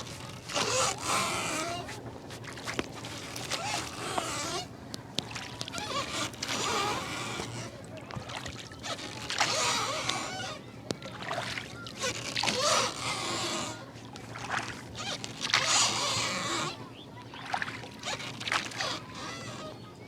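Steady low drone of a motorboat engine. Over it come repeated bursts of rustling and rubbing from hands working vigorously over a person's hair and scalp in a head massage.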